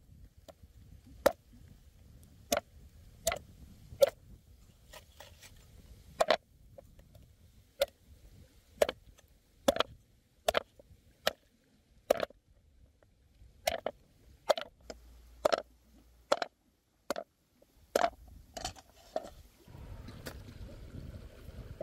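A machete chopping a cow tail into pieces on a wooden chopping board: about twenty sharp chops, roughly one a second, that stop about 19 seconds in. A steady low rush of outdoor background follows.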